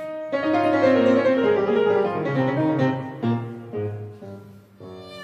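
Background piano music: single notes and short runs struck and left to fade.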